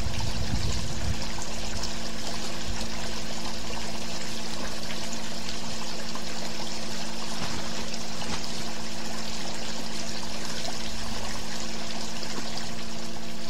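Steady hiss with a low hum underneath, unchanging throughout, with no distinct events.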